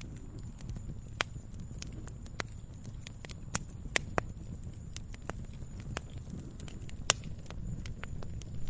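Firewood burning: irregular sharp crackles and pops over a steady low rumble of the fire, with a few louder pops about four and seven seconds in.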